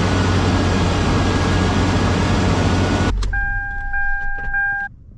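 The 2000 Toyota 4Runner's four-cylinder engine running, freshly brought back to life after a fuel pump replacement, then switched off about three seconds in. The truck's warning chime then beeps three times.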